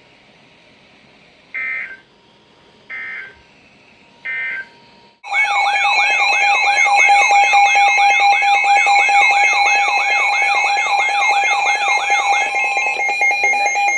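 Emergency Alert System tones between two warnings: three short data bursts of a SAME header, then a loud alert tone, a steady tone with a fast repeating rising sweep over it, about two sweeps a second, the sweeps stopping shortly before the tone cuts off.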